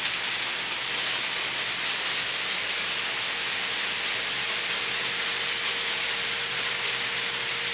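Model trains running on the layout's track: a steady whirr of small electric motors, gears and wheels on the rails.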